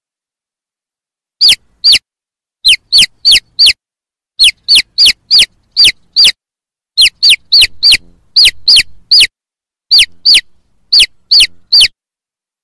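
Chicks peeping: about two dozen sharp, high peeps, each falling in pitch, coming singly and in quick runs from about a second and a half in until near the end. The loud, falling peep is typical of a chick calling for its mother.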